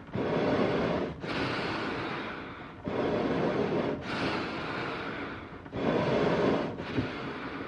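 Eerie, heavy animal breathing, slow and regular: each breath is a louder, shorter rush followed by a longer, softer one, about three breaths in all.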